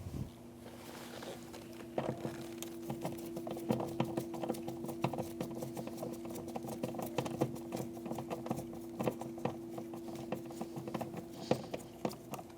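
A ratchet with a 5.5 mm socket clicking in quick, irregular runs as small door panel screws are snugged down, over a faint steady hum.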